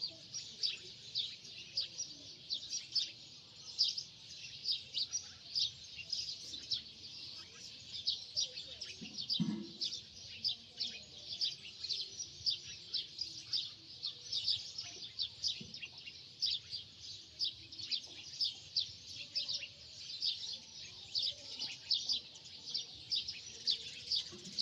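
Small birds chirping: a continuous stream of short, high chirps, many each second.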